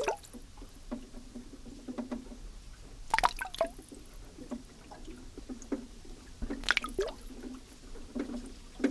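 Underwater sound picked up by a hydrophone in a river: irregular drips, small splashes and clicks, with louder splashes about every three seconds.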